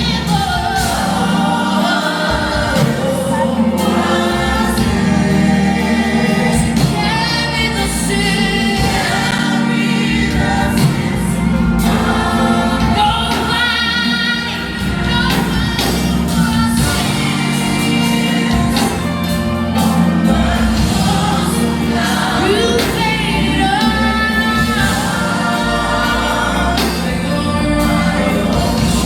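Gospel choir singing a worship song with instrumental backing, the voices holding long sung notes over a steady low accompaniment.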